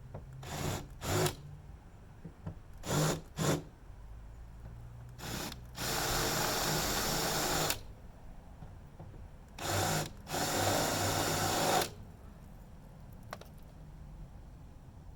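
Power drill drilling out the pop rivets that hold the motorhome's outside furnace cover: several short bursts, then two longer runs of about two seconds each as the bit works through the rivets.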